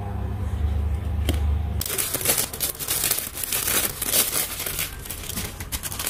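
Clear plastic sleeve crinkling as a photocard is slid into it and the sleeve is pressed flat, a dense run of crackles starting about two seconds in. Before that there is a low steady hum.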